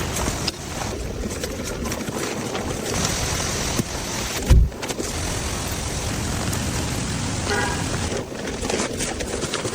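Steady rain falling on a car, an even hiss, with one short low thump about four and a half seconds in.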